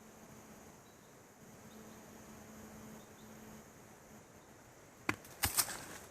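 Quiet forest ambience with a faint steady low hum in the first half, then a few sharp crackling crunches about five seconds in, footsteps on twigs and debris on the forest floor.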